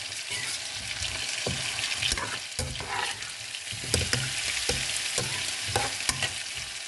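Chopped okra and onion sizzling in oil in a nonstick pan as a spoon stirs them, with a steady hiss and irregular scrapes and taps of the spoon against the pan.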